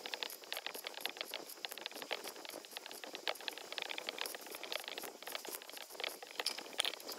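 Stick-welding arc crackling faintly: a rapid, irregular sizzle of small pops as a welding rod is run on steel.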